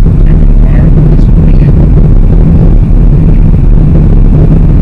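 Loud, steady low rumble of a 2016 Chrysler 200C on the move, heard from inside the cabin, with faint muffled voices under it.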